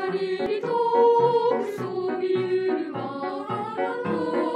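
A boys' and girls' choir singing a song in unison, over a steady pulse of low accompanying notes.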